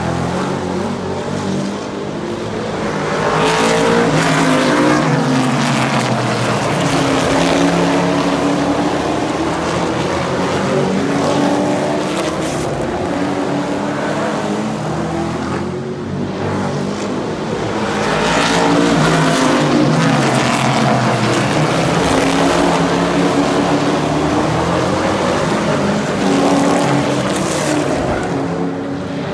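Super trucks racing on a paved short oval. Their engines run at full throttle and swell loudly as the trucks pass close by, then fade, with the engine pitch falling as each truck goes past. This happens several times, as the pack comes round each lap.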